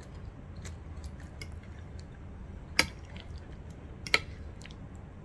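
A metal fork clinking against a ceramic plate, with two sharp clicks about three and four seconds in and a few lighter ticks, over soft chewing.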